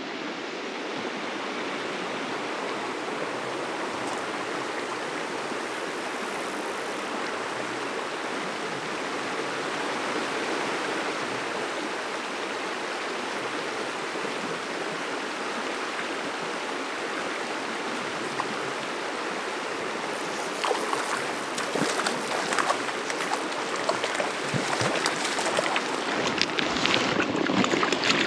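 A mountain creek running steadily over rocks. From about twenty seconds in, it is broken by quick irregular splashes as a landed fish thrashes in a landing net in the shallows.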